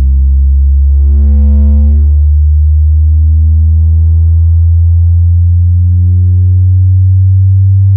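Fredo 8-inch subwoofer, driven by a TPA3116D2 class-D amplifier board, playing a loud bass test-sweep tone that slowly rises in pitch, with strong overtones.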